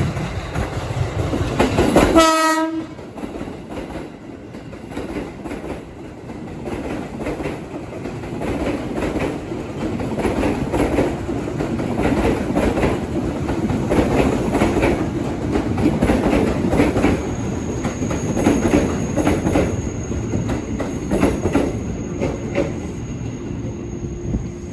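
A train at a station gives one short horn blast about two seconds in. It then runs past with its wheels clattering over the rail joints, growing louder. A faint high steady whine joins in the second half.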